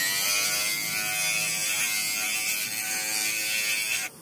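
Abrasive disc on a bench motor grinding a red plastic tail light lens held against it: a loud, high whine that rises slightly in pitch, cutting off sharply just before the end.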